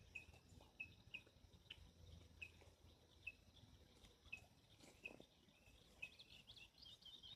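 Near silence outdoors, with faint, short, high chirps repeating about every half second to a second and a quicker flurry of chirps near the end.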